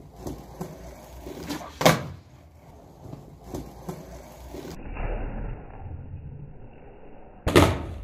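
Skateboard on concrete: a few light clicks and taps of the deck and wheels, a sharp loud smack of the board about two seconds in, a low rumble of wheels rolling, and another loud board pop or landing near the end.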